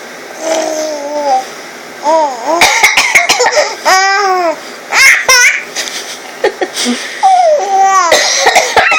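Baby laughing in several high-pitched bursts of giggles and squeals, each set off by an adult's short coughs in between.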